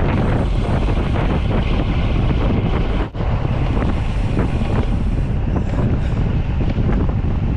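Heavy wind buffeting a camera microphone while riding a bicycle, a loud, steady rumbling rush with a brief dip about three seconds in.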